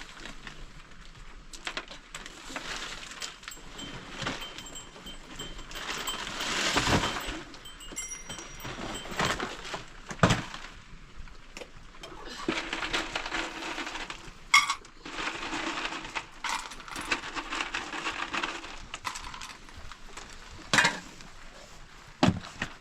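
Scattered knocks and clinks, with several sharp ones in the second half, over a steady noisy background.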